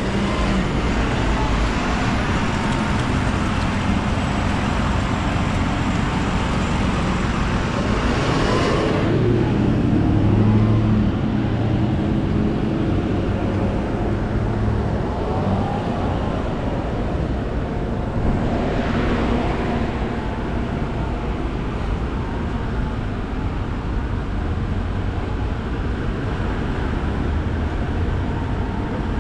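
Diesel truck driving on the road: steady engine and road noise, with two louder swells about nine and nineteen seconds in.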